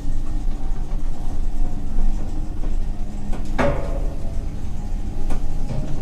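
Elevator running with a steady low hum. A sharp knock with brief ringing comes about three and a half seconds in, and a few light clicks follow near the end.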